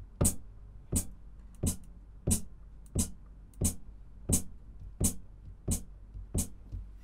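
Pedal hi-hat ('HH CTRL') sound of an Aroma TDX-25 electronic drum kit, triggered over and over by the foot pedal: a short, crisp chick about every two-thirds of a second, each with a dull thud beneath it, while its pitch setting is turned to 63.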